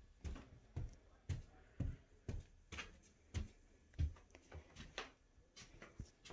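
Footsteps on a floor in a small room, an even walking pace of about two steps a second, each step a short thud.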